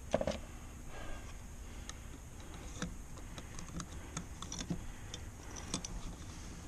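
Handling of tools and hardware: a sharp knock at the start, then irregular light clicks and ticks. No drill is running.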